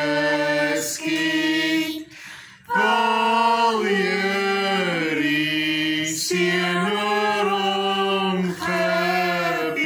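A family of adults and children singing a slow Afrikaans blessing hymn together without accompaniment, in long held notes, with a short breath pause about two seconds in.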